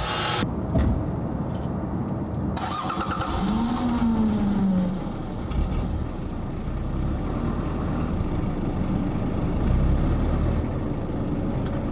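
A car engine starting and running, with one brief rise and fall in pitch about four seconds in.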